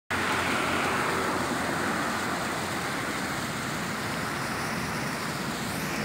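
Three 3/4-inch gun-metal geyser jet fountain nozzles running, their frothy water columns splashing steadily into a shallow pool.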